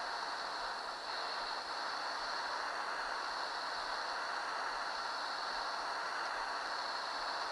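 Gas torch flame hissing steadily as it heats the outboard's cylinder block to break loose a rusted, seized bolt.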